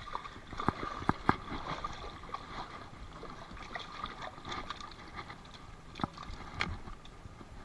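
Kayak and gear knocking, with a few sharp clicks, over steady running creek water.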